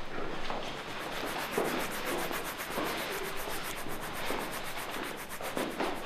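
Continuous scratchy rubbing noise, with a faint murmur of voices underneath.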